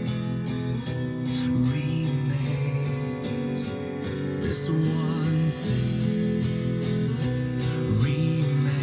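A guitar-led song with a voice singing, played by a Toshiba SA-3500 vintage stereo receiver through a small speaker: the receiver is passing sound to the speaker again after its blown fuses were replaced.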